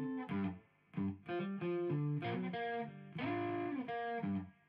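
Background guitar music: a plucked guitar playing a melody of short separate notes, with brief breaks.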